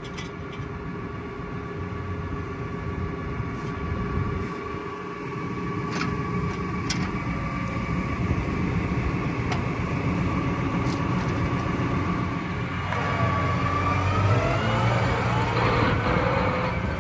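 John Deere 7R tractor's diesel engine running steadily at idle, with a few metal clinks as the PTO shaft is unhooked and set down. About thirteen seconds in, the engine revs up with a rising whine as the tractor pulls away.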